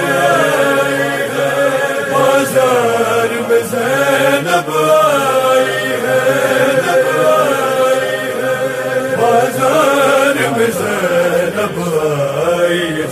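Voices chanting a noha, a Shia mourning lament, in a slow melody held without pause, with several voices layered.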